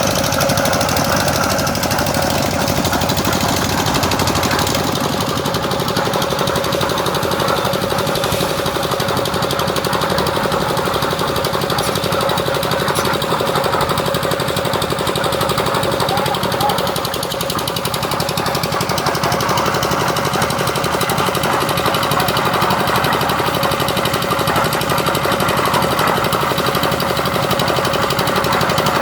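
Concrete mixer machine's engine running steadily and loudly, with a constant whine over a fast rattling beat.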